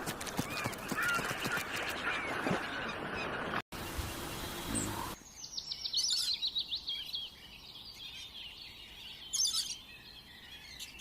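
Small birds chirping and trilling, with short high chirps repeated throughout. The background cuts abruptly twice, about a third of the way in and again about halfway, as different outdoor recordings are joined together.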